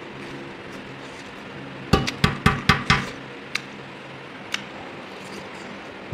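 Tableware knocking: five quick, sharp clinks against a plate a little under two seconds in, then two more single clinks, over a steady low hum.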